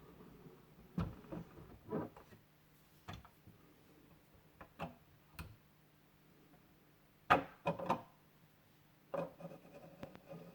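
Irregular light knocks, taps and rubbing from hands handling a 1:18 diecast model car and its packaging, with the loudest cluster of knocks about seven seconds in.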